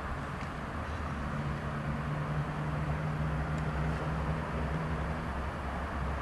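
Steady low engine drone under a hissing noise, with a deeper hum that swells in about a second in and fades out near five seconds.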